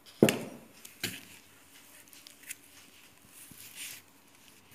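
Two knocks, a loud one just after the start and a smaller one about a second later, then soft rubbing and squishing as a bare hand kneads soft butter into icing sugar in a plastic bowl.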